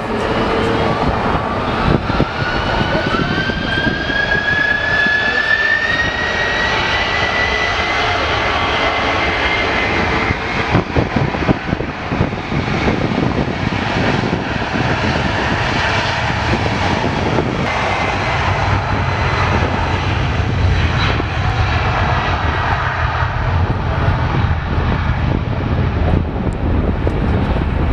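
Boeing 747 (VC-25A Air Force One) with its four General Electric CF6 turbofans at takeoff power: a loud, steady jet roar with a whine that rises in pitch over the first several seconds. A deeper rumble grows in from about two-thirds of the way through.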